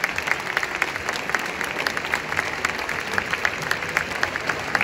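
Stadium crowd applauding: many hands clapping out of step in a dense, steady patter, with a few loud, sharp claps standing out.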